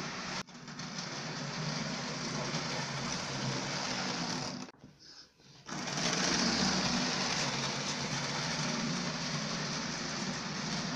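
Model Class 55 Deltic locomotive running along the track: its small electric motor whirs steadily, with the noise of wheels rolling on the rails. The sound drops out briefly about half a second in, and again for about a second near the middle.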